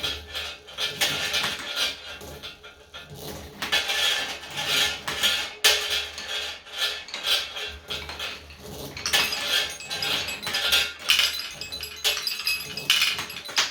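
Marbles rolling and clattering down a marble run, with rapid clinks as they knock against the track and against each other.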